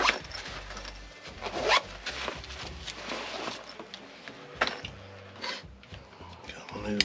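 A tool backpack being unzipped and rummaged through while a clamp meter with its test leads is taken out: a few short zipper-like scrapes, the sharpest at the start and about two seconds in, with scattered rustles and clicks.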